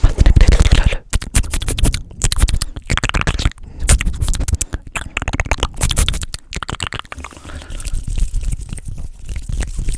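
Fast, wet mouth sounds right on the microphone: rapid clicks, pops and smacks in quick succession, densest and loudest in the first seconds and thinning toward the end.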